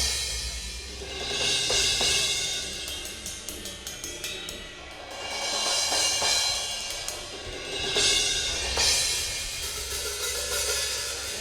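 Drum kit cymbals played on their own. Crashes swell and ring out several times, with a run of quick, sharp taps a few seconds in.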